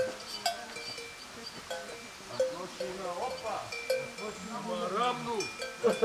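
Metal bell hung on a goat's neck clanking irregularly as the goat moves, each clank ringing briefly at the same few pitches.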